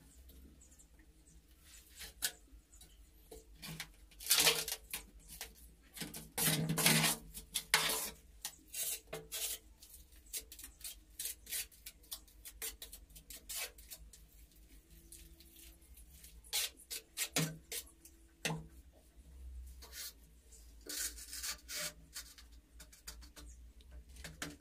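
A steel trowel scraping and scooping cement mortar in a metal pan and spreading it on the back of a ceramic wall tile, in short bursts of scrapes and clinks. Tiles are pressed and knocked into place on the wall.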